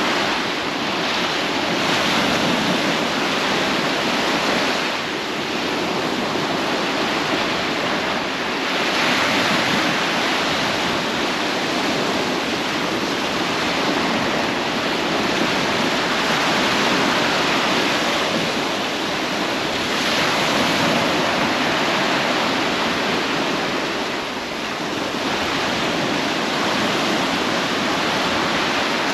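Ocean waves washing in: a steady rushing hiss that swells and eases every few seconds.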